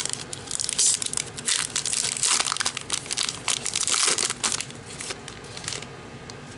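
Plastic wrapper of a trading-card pack crinkling and tearing as it is opened by hand, a dense crackle that dies away about six seconds in.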